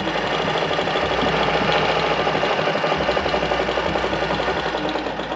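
Alfa Alfamatic 103-3 sewing machine, driven by a foot treadle, sewing a straight stitch at a reduced stitch length: a fast, even clatter of needle strokes.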